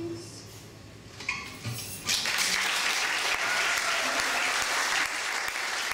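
The last note of a song dies away, and about two seconds in an audience starts applauding, a steady clapping that keeps going.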